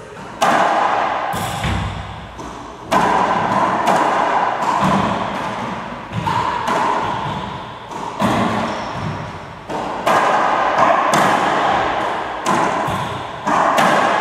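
A racquetball rally: the hollow ball cracks off racquets and the court's front and side walls in quick succession, about one or two hits a second. Each hit rings on in the enclosed court.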